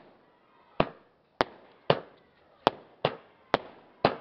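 Fireworks going off: about seven sharp bangs, roughly half a second apart, each dying away quickly.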